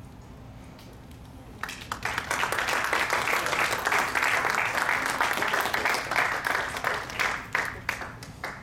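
Audience applauding: the clapping starts about two seconds in, holds for several seconds, then thins out to a few last claps near the end.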